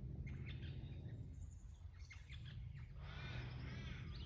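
Birds chirping in short calls, then a longer, harsher call from about three seconds in, over a steady low rumble of outdoor noise.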